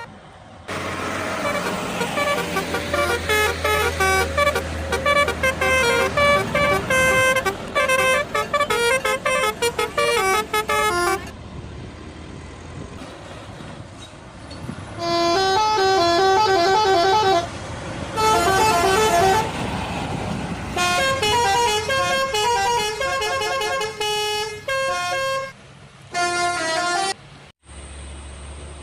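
Bus telolet horns, multi-trumpet air horns playing quick stepped tunes. A long burst over a rumbling bus engine is followed by a lull, then several shorter bursts.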